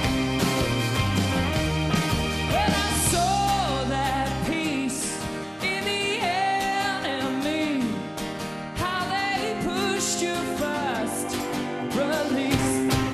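Indie rock band playing live: drums, bass, electric guitar and keyboard, with a male lead vocal coming in about two and a half seconds in. The heavy bass drops away about four and a half seconds in.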